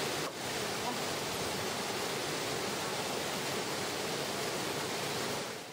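Waterfall pouring into a rock pool: a steady rush of falling water that fades out near the end.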